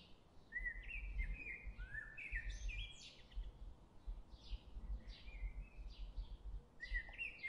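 Small birds chirping in short, bright calls, a quick run of them in the first few seconds and more near the end, over a faint low rumble of outdoor background.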